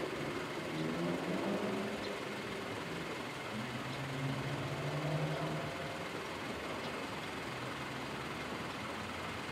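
A motor vehicle engine running steadily over background noise, with a low hum that swells briefly about halfway through.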